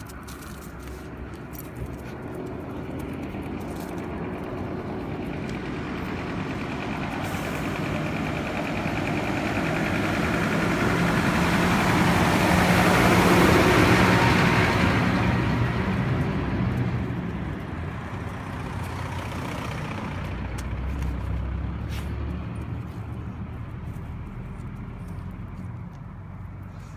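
A box truck drives slowly past close by, its engine growing louder to a peak about halfway through and then fading away.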